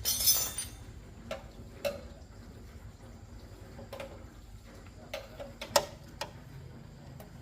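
Light, irregularly spaced metallic clicks and taps of bicycle parts or tools being handled during repair work, with a short scraping rush right at the start.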